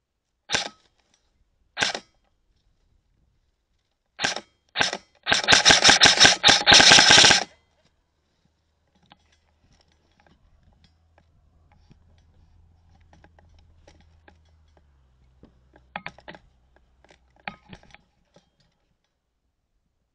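Airsoft rifle firing: two single shots, then two more, then about two seconds of rapid full-auto fire. A few quieter clicks follow near the end.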